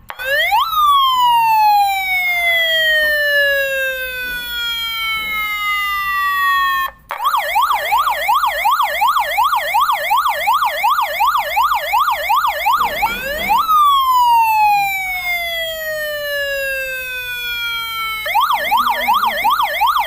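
Police car siren: the tone sweeps up quickly and then falls slowly over about six seconds, cuts briefly, switches to a fast yelp of about three up-and-down sweeps a second, then returns to a quick rise and long slow fall, starting to rise again near the end.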